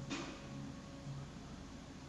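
Quiet room tone with a faint steady low hum, and a soft intake of breath at the start.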